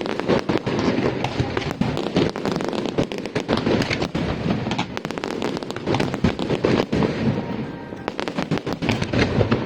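Aerial fireworks going off in rapid, overlapping succession: a dense run of bangs and crackles over a continuous rumble, with no pause.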